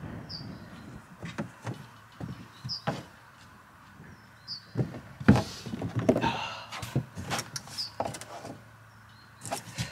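Irregular hollow knocks and thuds, with a brief scrape, as a wooden straight-edge is set down and moved on the rim of a rigid plastic pond shell and a person shifts about standing inside it. The loudest knock comes about five seconds in.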